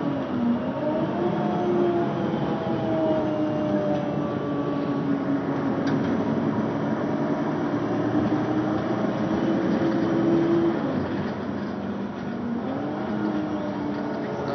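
Mercedes-Benz Citaro city bus engine pulling at full throttle, heard from inside the passenger cabin over steady road noise. Its note dips and climbs again about half a second in and once more near the end.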